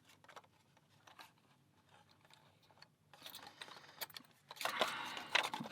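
Keys and a metal US mail lock being handled: a few light clicks at first, then jangling and clinking from about three seconds in, loudest near the end.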